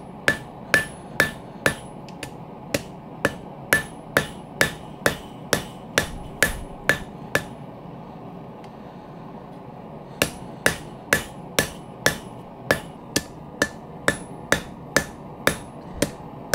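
Hand hammer striking red-hot steel on an anvil, about two blows a second, each with a short metallic ring, as the bar is rounded over and drawn out into a tong handle. The hammering pauses for about three seconds midway, then resumes at the same pace.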